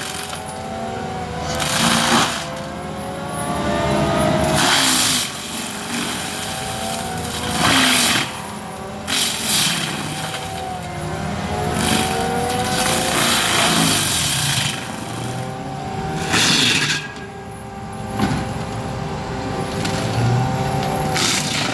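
ASV RT-120 compact track loader running a forestry mulcher drum into a pine log. Its whine sags and rises again over and over, with loud harsh bursts of grinding and chipping every two to three seconds as the teeth bite into the wood.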